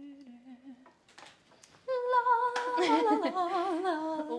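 A woman humming a Christmas tune: one held, gently wavering note that fades out about a second in, then after a short pause a louder, higher stretch of melody with a wavering pitch.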